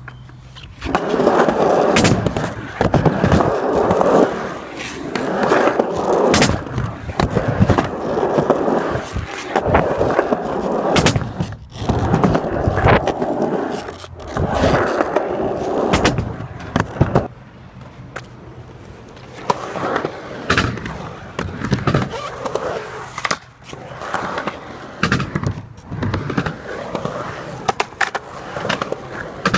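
Skateboard wheels rolling over concrete, a rumble that rises and fades in runs of a few seconds. Sharp clacks come now and then as the board hits the ground during tricks.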